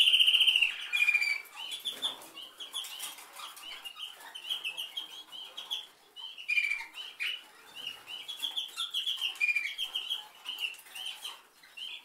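Domestic canary singing: a loud, fast trill that breaks off within the first second, followed by a run of quick, repeated chirping phrases.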